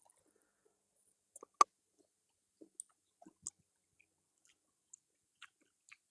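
Close-up biting and chewing of crispy fried chicken: one sharp, loud crunch about one and a half seconds in, then scattered smaller crunches and chewing sounds.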